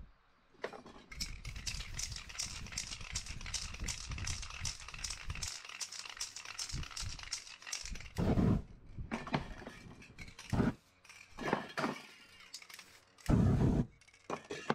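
Aerosol spray-paint can hissing in quick back-and-forth passes, pulsing several times a second for about seven seconds, then a few shorter sprays. Two louder, heavier bursts stand out, about eight seconds in and near the end.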